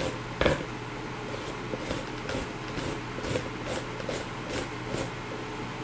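Green papaya being shredded on a handheld grater, a rhythmic rasping stroke about two to three times a second, the firmest stroke about half a second in.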